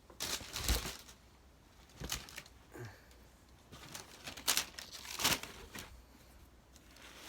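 Crinkling and rustling of packaging being handled during a shoe unboxing, in four or five short bursts, the strongest about half a second in and near five seconds in.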